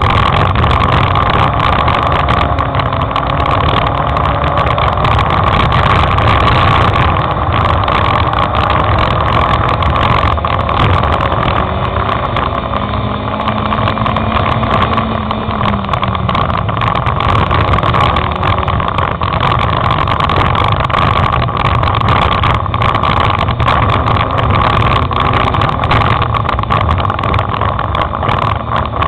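Onboard sound of a dirt-track race car at speed: the engine running hard under a loud rush of road and wind noise, its note rising and falling through the lap.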